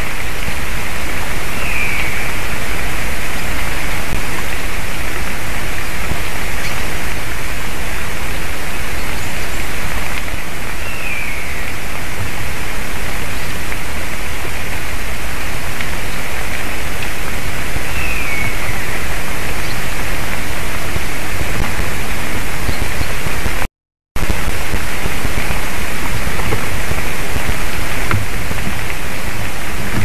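Steady loud hiss of outdoor noise on the nest camera's microphone, with a bird giving three short calls that fall in pitch, about 2, 11 and 18 seconds in. The sound cuts out completely for about half a second near 24 seconds.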